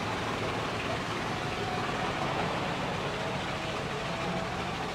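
Steady hum of a diesel engine running, an even drone with a faint constant tone.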